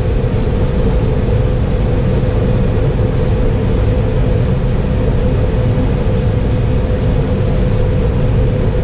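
John Deere combine running steadily while harvesting corn: a constant low rumble with a steady hum.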